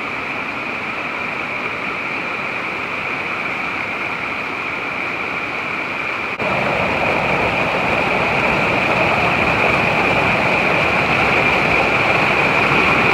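Small woodland waterfall and stream pouring over mossy rocks, a steady rush of water. About six seconds in it becomes louder and fuller, as close-up rushing water.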